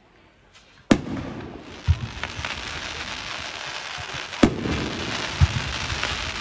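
Aerial fireworks bursting: a sharp bang about a second in and another near the middle, duller low booms between them, and a dense crackling that builds from about a second and a half on.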